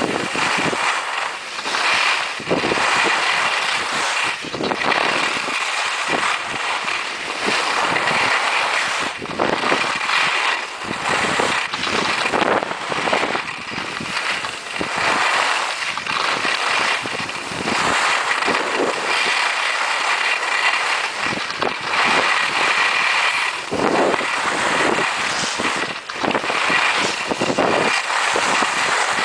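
Skis scraping and hissing over hard-packed snow during a downhill run, the noise swelling and fading with the turns.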